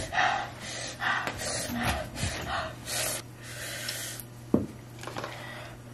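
A run of short, hard, noisy breaths from someone whose mouth is burning from 2x spicy noodles, then a brief squeak about four and a half seconds in.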